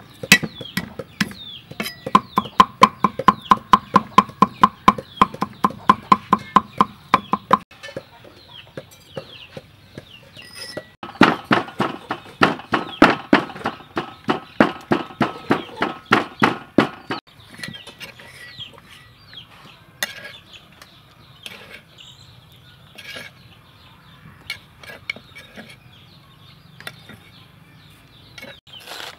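A cleaver chopping garlic on a wooden chopping block in rapid, even strokes, about four a second, for the first several seconds. A few seconds later a wooden pestle pounds in a clay mortar in a second, louder run of strikes, followed by a few faint scraping clicks. Chickens peep and cluck in the background throughout.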